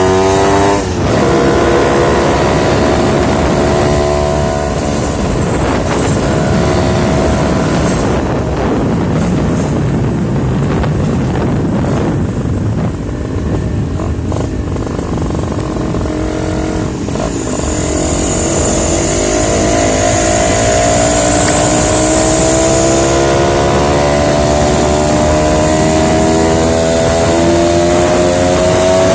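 Suzuki Tornado two-stroke motorcycle engine running under way, rising in pitch as it accelerates. It drops briefly about a second in, like a gear change. It runs lower for a while, then climbs in pitch again past the middle and holds there.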